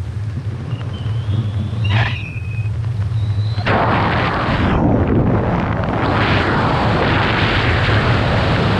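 Wind rushing over the microphone of a skydiver's camera under an open parachute canopy. For the first few seconds it is a low rumble with a thin, wavering high whistle, and about four seconds in the rush grows much louder as the canopy is steered into a turn with the toggle.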